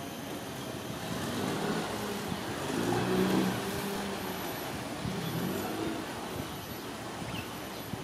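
A motor vehicle passing over steady traffic noise, its engine and tyre sound swelling to loudest about three seconds in, then fading.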